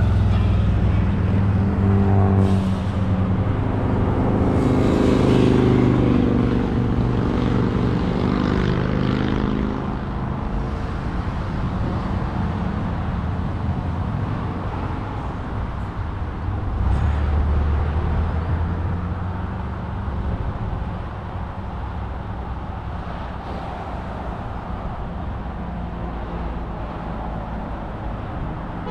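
Road traffic heard from a moving e-bike. A motor vehicle's engine climbs in pitch as it accelerates over the first ten seconds or so, and another low engine note swells briefly around the middle, over a steady rush of road noise.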